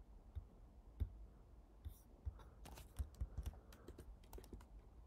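Faint computer keyboard typing: a scattered run of soft key clicks, thickest in the middle.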